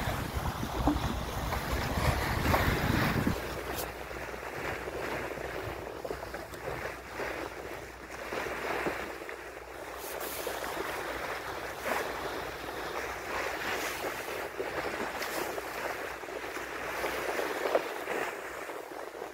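A ship's bow wave rushing and splashing along the hull as it cuts through the sea. For the first three seconds or so, wind buffets the microphone with a low rumble.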